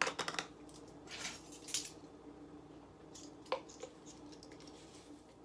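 A quick cluster of clicks as a spice jar is handled, then two short soft rustles of dried oregano being measured out with a measuring spoon, and a single sharp tap about three and a half seconds in, over a faint steady hum.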